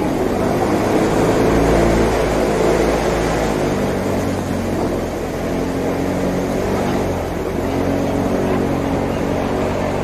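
Airboat engine and propeller running steadily, with a strong low rumble under it that is loudest in the first few seconds.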